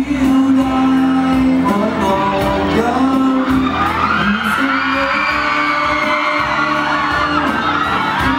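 A man singing a Thai pop song live into a microphone over a backing track, with high-pitched whoops and screams from the audience joining in from about halfway.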